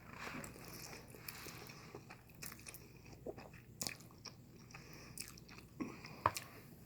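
Quiet chewing of a mouthful of noodles: soft, irregular wet mouth clicks and smacks, with a few sharper ones about four and six seconds in.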